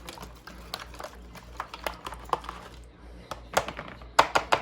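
Whisk clicking and tapping against the side of a bowl while beating raw eggs. The clicks are irregular, with a louder cluster near the end.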